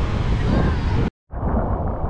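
Wind buffeting the microphone over a steady low rumble. About a second in, the sound cuts out briefly, then a duller rumble with less hiss resumes.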